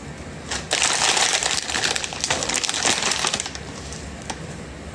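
Crinkling and rustling full of small clicks, starting about a second in and lasting about three seconds.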